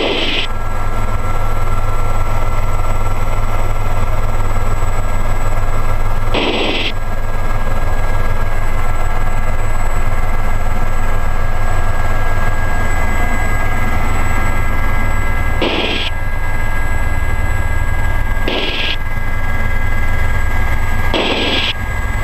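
Gazelle helicopter's turbine and rotors running steadily, heard from inside the cabin: a deep constant rumble with a few steady high whining tones. Five short bursts of hiss break in, spaced irregularly.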